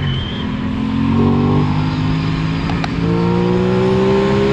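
Aprilia Tuono 660's parallel-twin engine accelerating hard through the gears. The revs climb steadily and drop back at each upshift.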